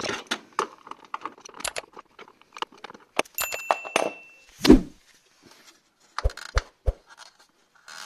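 Metal tools clicking and clinking on a refrigerator compressor's mounting screw as it is tightened down onto its stacked rubber washers, to stop the loose compressor foot from vibrating. A short metallic ring comes about three and a half seconds in, a heavier knock shortly after, and three quick low knocks near the end.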